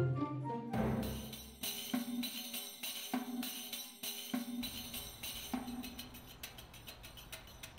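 Film score music: a sustained orchestral phrase ends under a second in and gives way to a sparser percussion passage with a steady beat and a repeated low note.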